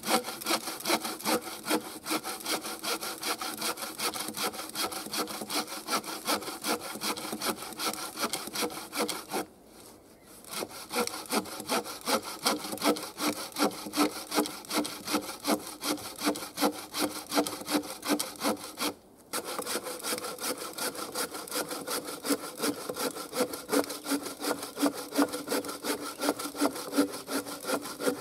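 Wooden-framed bow saw cutting through a log in quick, steady back-and-forth strokes. It stops briefly twice, about ten seconds in and again just before twenty seconds.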